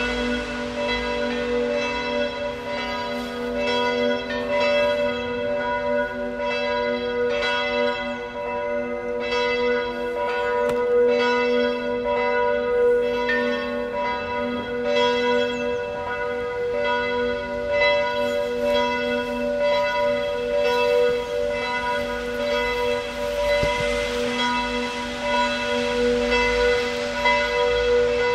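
Church bells ringing, several bells struck over and over with their tones hanging on. Beneath them, fainter tones slide slowly down in pitch, typical of a siren rotor coasting to a stop after its run.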